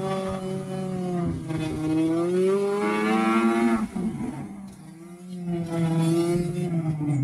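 2005 Arctic Cat Sabercat snowmobile's two-stroke engine under throttle. Its pitch climbs for a couple of seconds, drops off sharply about four seconds in as the throttle is let off, then builds again near the end.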